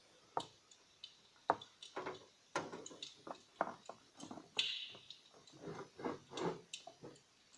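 Handling sounds of the steam generator units being lifted out of an electric steam fireplace's water tray: a run of sharp clicks and knocks, with a brief rushing hiss a little past halfway.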